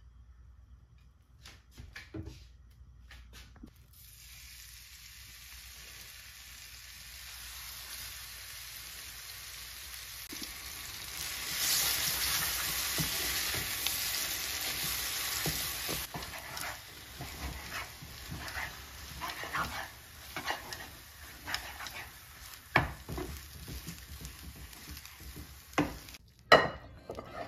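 Mustard oil heating in a pan with a growing hiss, then a louder sizzle as mashed potato fries in it. A wooden spatula then stirs and scrapes the mash around the pan, with a couple of sharp knocks near the end.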